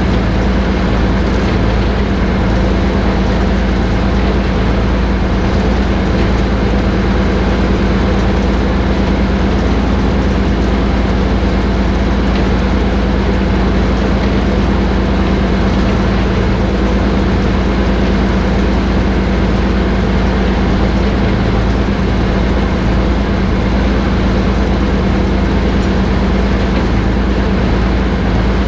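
Diesel engine of the small Kö 5049 shunting locomotive running steadily while the loco rolls slowly along the track. It is heard close up from the locomotive's body as a loud, even low drone with a steady hum.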